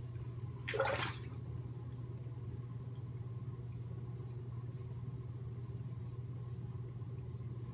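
Merkur 37 slant-head safety razor with an Astra blade drawn over lathered stubble, giving faint short scrapes. A brief, louder rising swish comes about a second in, over a steady low hum.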